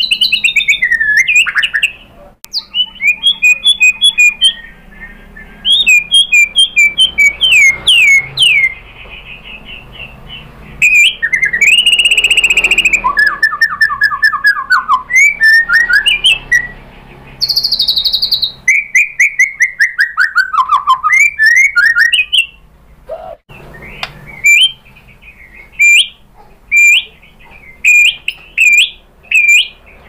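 Male white-rumped shama (murai batu) singing loudly in a varied, fast song: rapid trills, runs of quick repeated notes and clear whistles that slide down in pitch, in phrases broken by short pauses, the rapid-fire 'tembakan' bursts that shama keepers prize. Near the end it gives a string of short sharp notes a little under a second apart.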